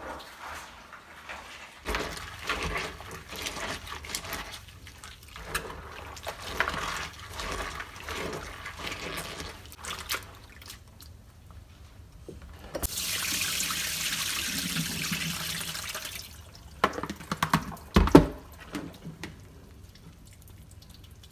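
Soaked black-eyed peas being rubbed and sloshed by hand in a plastic basin of water to loosen and wash off their skins. Water runs steadily for about three seconds past the middle, and a few loud knocks of the basin and colander come near the end.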